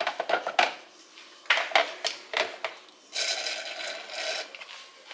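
Hands rubbing butter over a raw turkey in a disposable foil roasting pan: irregular rubbing and clicking handling sounds, then about a second of steady hissing noise.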